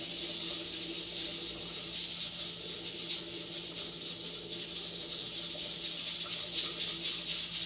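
A knife slicing a red bell pepper held in the hand, a few faint crisp cuts, over a steady hiss and a low hum.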